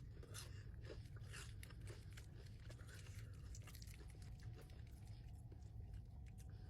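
Close-up bites and chewing of crispy Popeyes fried chicken, the breading crunching in many short crackles.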